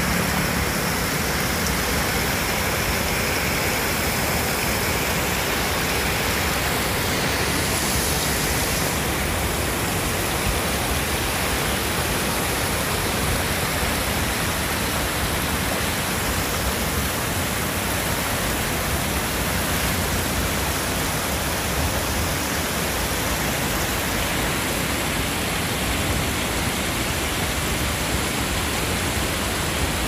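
River water pouring over a concrete weir, a steady rush of falling and running water.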